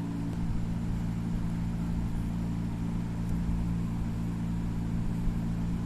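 A steady low hum made of several constant low tones, with a rumble beneath it.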